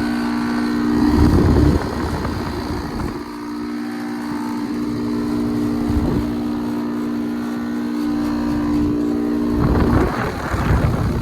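Outdoor HVAC condensing unit (heat pump or air conditioner) running loudly, with a steady low compressor hum. Brief rumbles of noise come about a second in and again near the end.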